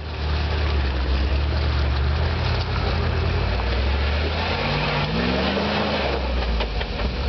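Land Rover Defender's engine running at low revs as the 4x4 crawls through deep muddy ruts, with a brief rise in the engine note about five seconds in.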